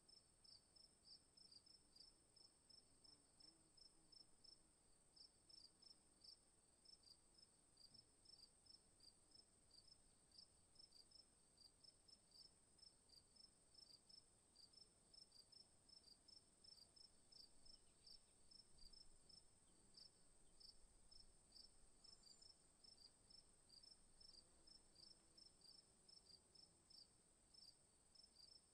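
Faint insect chirping: short high chirps repeating steadily a few times a second over a steady high-pitched hiss.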